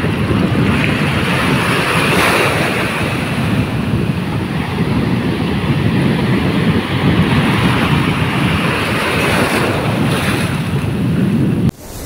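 Ocean surf breaking and washing in, with wind rumbling on the microphone. The sound drops suddenly near the end.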